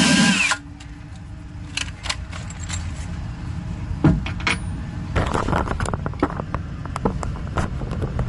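Metal cabinet-door hinge hardware and hand tools being handled while hinge screw holes are marked with an awl: scattered small clicks, taps and metallic clinks. A loud burst of noise cuts off about half a second in.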